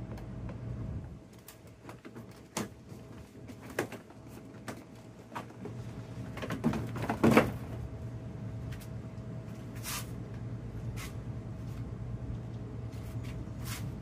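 Plastic interior door trim panel of a 2011 Ford F-150 clicking and knocking as it is handled and worked loose from the door, with scattered sharp clicks and the loudest cluster of knocks about halfway through.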